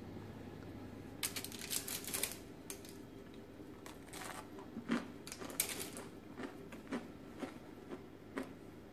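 Crunchy chewing of a baked oat cookie: irregular bursts of crackly crunches and a few single sharp clicks, starting about a second in.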